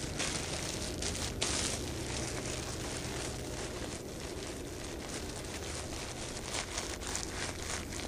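Thin black plastic garbage bag, made into a tarp, crinkling and rustling as it is wadded and squeezed into a small bundle by hand, with a louder rustle about a second and a half in.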